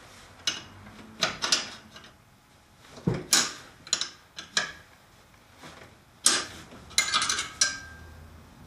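Irregular sharp metal clinks and clicks of a wrench and vise-grip locking pliers working the oil drain nut and drain pipe on a snowblower engine, loosening the nut to drain the oil.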